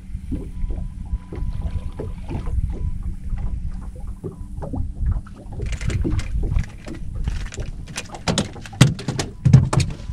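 Small waves lapping and slapping irregularly against the hull of a small skiff, with wind on the microphone. In the last couple of seconds come sharper, louder splashes and knocks.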